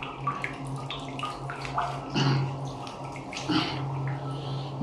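Small metallic clicks and scrapes as a chrome sleeve is fitted onto a Jaquar diverter valve, over a steady low hum.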